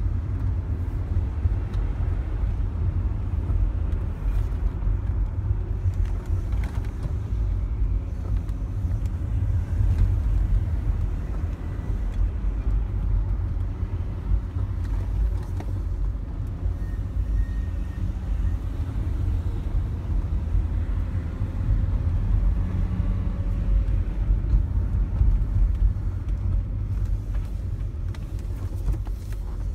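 Mercedes-Benz engine and road rumble heard from inside the cabin while driving, with a faint whine that drifts up and down in pitch. The owner takes the whine for the power steering and self-leveling suspension pump, because a new genuine Mercedes belt tensioner has not cured it.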